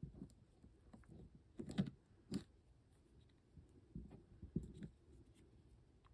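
Faint plastic clicks and handling noise as a small toy gun is worked into a plastic action figure's hand, in scattered short taps with a couple of louder clicks about two seconds in.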